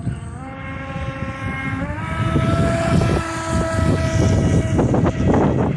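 Radio-controlled model speedboat's motor running with a steady pitched whine that steps up in pitch twice as the throttle is opened.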